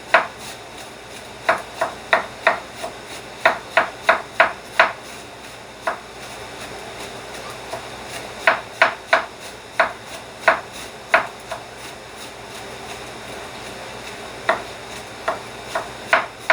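Kitchen knife shredding cabbage on a cutting board: runs of sharp chopping taps, about three a second, broken by pauses.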